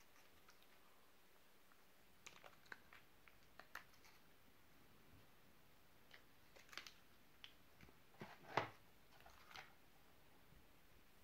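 Scattered light clicks and rustles of hands handling MRE food pouches and crackers on the table, with one louder, sharper handling sound about eight and a half seconds in; otherwise very quiet.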